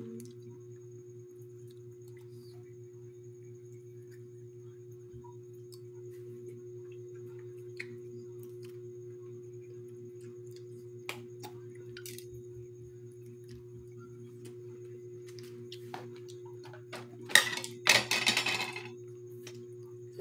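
Balut duck eggshells being cracked and peeled by hand and spoons tapping and scraping against the shells, heard as scattered faint clicks over a steady low hum. Near the end comes a louder rustling noise lasting about a second and a half.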